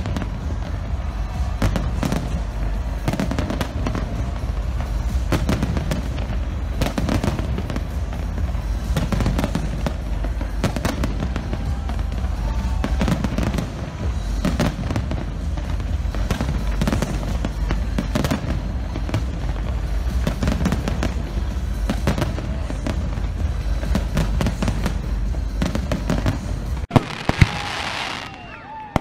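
Large aerial fireworks display: a dense, continuous barrage of shell bursts and crackling over a deep rumble, with music underneath. Near the end the rumble cuts off suddenly and it grows quieter, with a few sharp bangs.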